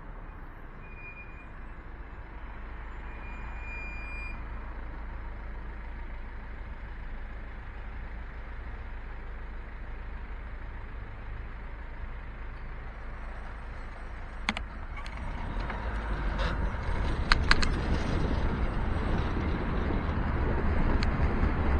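Steady low rumble of city street traffic while the bicycle waits at a junction. A few sharp clicks come about two-thirds of the way in. Wind and road noise then grow louder as the bike moves off.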